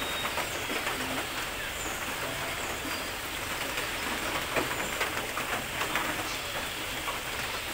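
Steady patter and splashing of water, many small drops landing on a surface.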